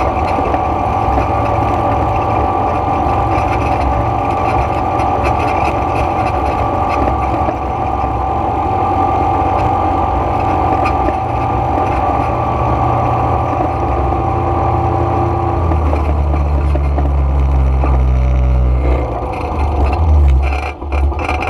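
ATV engine running steadily under way on a dirt track. Its note changes about sixteen seconds in and dips briefly near the end.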